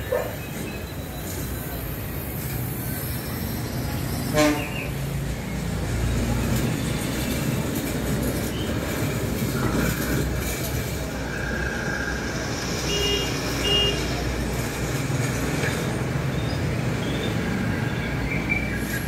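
Cinema sound-demo soundtrack played through a home theatre speaker system: a steady deep rumble with swelling effects and a sharp hit about four seconds in.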